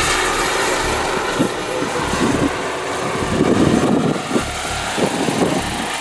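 Giant-scale RC Bell AH-1 Cobra model helicopter's turbine engine running with a steady high whine, over the noise of its two-blade main rotor as it flies low. Irregular low rumbling gusts come and go through the middle.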